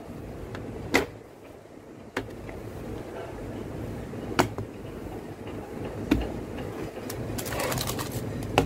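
White plastic folding bed tray being opened out: single sharp plastic clicks and knocks a second or two apart as it is handled, then a quick run of clicks and rustling near the end as food on paper is set down on it.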